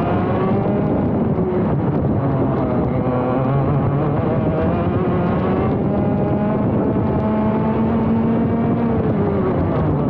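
Onboard sound of a ROK GP Junior 125cc single-cylinder two-stroke kart engine at racing speed. Its note climbs under acceleration and drops back sharply several times, about every three to four seconds, as the kart laps the circuit.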